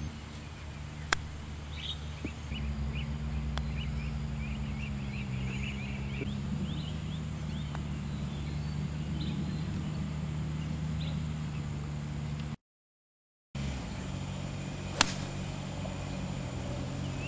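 Golf clubs striking balls: a sharp click about a second in and a fainter one a few seconds later, then a louder crack of a tee shot near the end. A steady low mechanical hum runs underneath, with birds chirping in short repeated notes for a few seconds, and the sound drops out for about a second at a cut.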